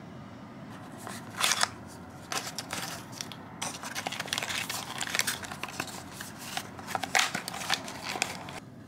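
Cardboard box of a rapid antigen test kit being opened by hand and its foil pouch slid out: irregular rustling, crinkling and scraping of cardboard and foil packaging, starting about a second in.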